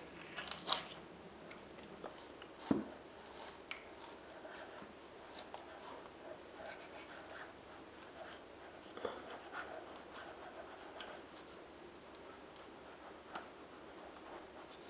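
Whole aloe vera leaf being broken and peeled by hand, then sliced and scraped with a knife: soft crackles and scratches with a few sharper snaps, the loudest about two and a half seconds in.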